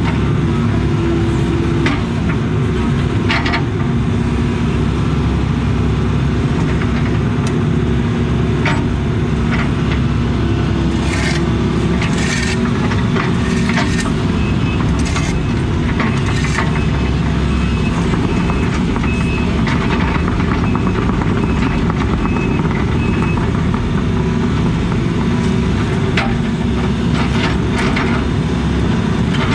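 Case CX80 excavator's diesel engine running steadily under hydraulic work, with scattered knocks and clanks. A steady series of high beeps, like a backup alarm, sounds for several seconds midway.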